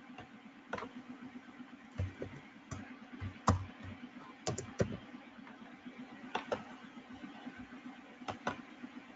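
Computer keyboard keystrokes and mouse clicks, scattered single clicks and quick runs of two or three, over a faint steady low hum.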